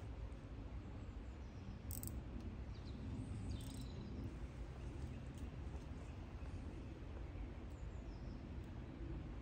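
Quiet outdoor ambience: a steady low rumble with a few short faint clicks about two and three and a half seconds in, and faint bird calls.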